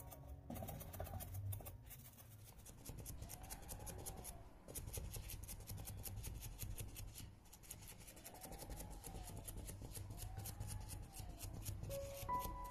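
Round foam sponge dabbing acrylic paint onto a stretched canvas: a rapid, even run of soft crisp taps that thickens about three seconds in.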